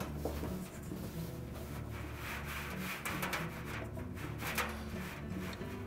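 Dryer drum being worked into the cabinet and onto its rear drum rollers: the sheet-metal drum and its felt seal rubbing and scraping against the cabinet, with a few light knocks around the middle.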